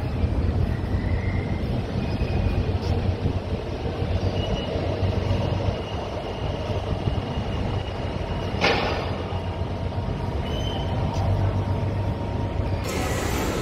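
Steady low rumble of city and harbour-side traffic noise, with a short hissing burst about nine seconds in. The background noise turns brighter and fuller near the end.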